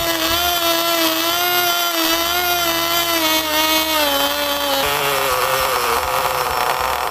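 Small two-stroke nitro glow engine from a 1/16 RC buggy running at high revs, a high, buzzing note that wavers. A little under five seconds in, the revs drop and the note slides lower and rougher.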